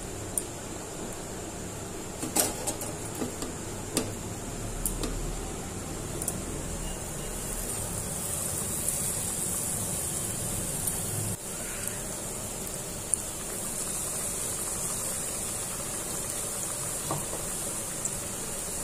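Batter-coated stuffed pointed gourds (potol pakoras) frying in hot oil in a kadai: a steady sizzling hiss that builds from about eight seconds in. Before that, a few sharp clicks, over a steady background hum.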